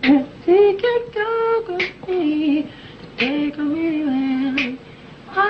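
A lone high male voice singing a melody without accompaniment, played back from a cassette work tape. It holds a string of short sustained notes on simple syllables: a songwriter's vocal demo sketching a song's bridge.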